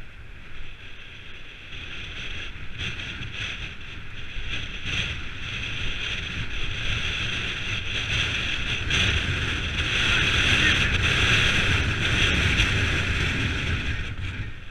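Wind rushing over the microphone of a helmet-mounted camera while a mountain bike rolls along a rough dirt track, with scattered knocks and rattles from the bumps. It grows louder from about eight seconds in.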